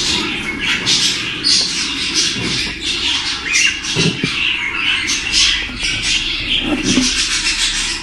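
Cockatiel nestling giving rapid, repeated raspy calls, the hissing food-begging calls of a young chick in the nest.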